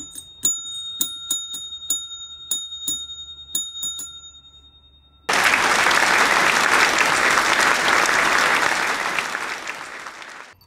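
A bell rung over and over, a quick run of dings on one ringing tone that dies away about four seconds in. About five seconds in, a crowd starts applauding suddenly, and the applause tapers off near the end.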